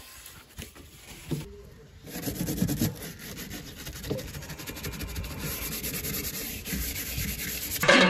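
A cloth rubbing and scrubbing against the plastic inner liner of a fridge box as it is wiped clean, a steady scrubbing that grows fuller about two seconds in.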